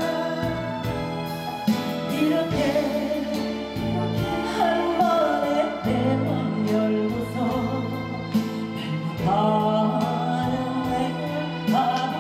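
A woman singing a melodic song into a handheld microphone, backed by a band of electric guitars, violin and keyboard.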